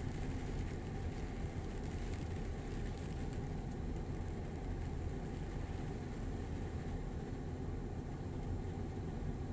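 Rain falling, with a steady low rumble underneath and a light patter of drops that fades after about three seconds.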